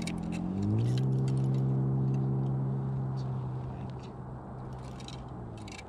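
An engine running with a steady hum that steps up in pitch and loudness about a second in, then slowly fades. A few light clicks sound over it.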